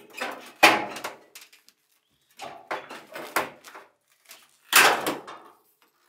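Sheet-metal front panel of a Maytag Performa dryer being lifted off its bottom clips and pulled free of the cabinet. There is a loud clunk under a second in, a run of knocks and scrapes in the middle, and another loud clunk near the end.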